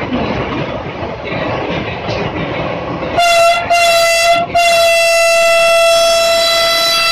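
Vande Bharat Express running at speed, heard as an even rush of running noise from inside the driver's cab. About three seconds in, its horn sounds loud and single-pitched: two short blasts, then a long held blast.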